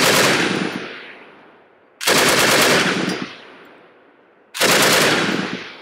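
Soviet DS39 7.62×54R heavy machine gun firing three short bursts about two and a half seconds apart, each burst followed by a fading echo. The gun is on its slower infantry rate-of-fire setting.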